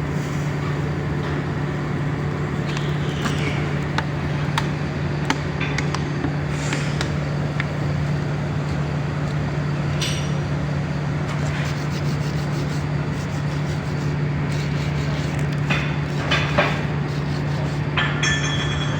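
A steady low machine hum with scattered short clicks and knocks, and a few brief hissing bursts.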